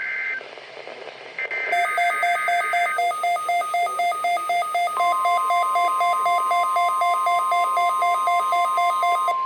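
NOAA Weather Radio SAME data burst for a Required Weekly Test: a warbling two-tone digital header, sent again about a second and a half in. A weather radio receiver's alert then beeps about twice a second, and a steady alert tone joins about halfway through.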